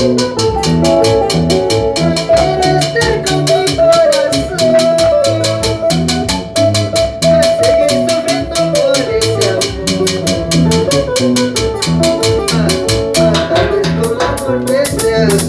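Live band playing amplified dance music: electric guitar and bass over drums, with a fast, steady percussion pulse and a male voice singing into a microphone. The song ends on a cymbal crash near the end.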